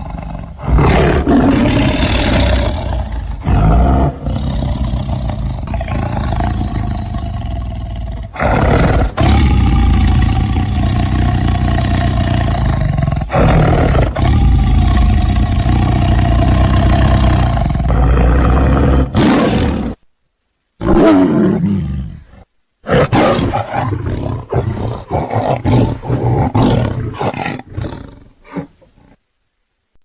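Tiger roaring loudly in long, drawn-out stretches broken by short pauses. After a clean break of about a second two-thirds of the way through, it comes in shorter, choppier roars that die away near the end.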